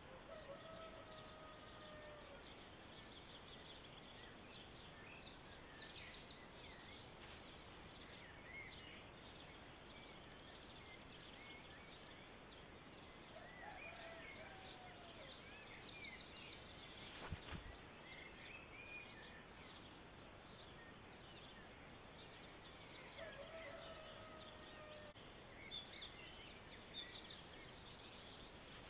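Near silence: faint outdoor hiss with a few faint, distant bird calls now and then, and one brief soft knock a little past the middle.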